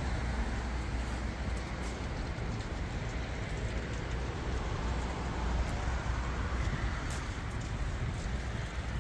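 Truck wash running: a steady low rumble under an even hiss, with a few faint clicks.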